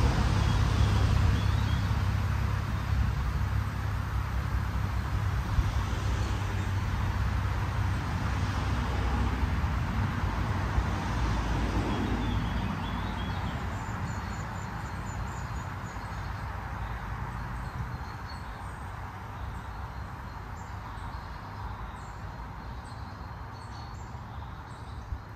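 Wind buffeting the microphone: a heavy, low rumble that slowly eases off. Faint high chirps come through in the second half.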